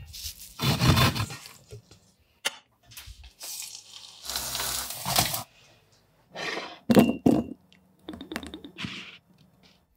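A quick series of kitchen sounds. First, clattering and scraping in a stainless steel bowl as potato batter is mixed. Then potato batter sizzles as it is spread into hot oil in a frying pan. Then there are a few sharp knocks and a short trickle as sauce is poured into a small ceramic bowl.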